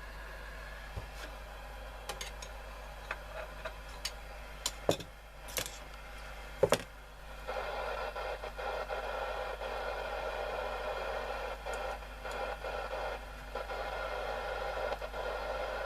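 Small metallic clicks and knocks of a screwdriver working screws out of a transistor radio's case, with two louder knocks about five and seven seconds in. A steady rushing noise comes in about halfway and runs on under the clicks.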